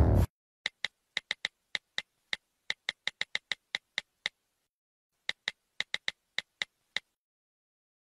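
Music cuts off just after the start. Then comes a run of about two dozen short, sharp clicks at an uneven, typing-like pace, with a break of about a second in the middle, stopping about a second before the end.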